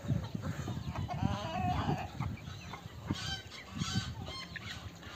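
Chickens clucking as they feed: a run of short clucks about a second in, then a few sharper, higher calls around three to four seconds in.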